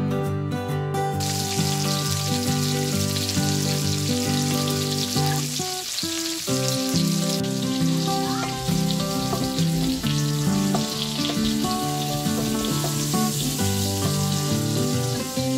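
Potato and carrot chunks sizzling as they fry in a stainless steel pan, the hiss setting in about a second in, over background guitar music.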